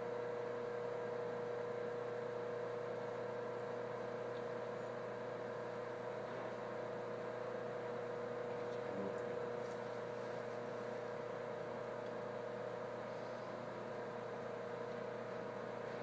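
Steady electric hum and whir of the running water flow-visualization table, holding a constant mid-pitched tone throughout.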